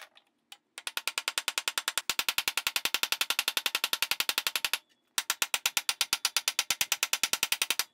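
Rapid, evenly spaced hammer blows, about ten a second, driving a wooden dowel blank through a steel dowel plate. They come in two runs with a short pause just before the midpoint.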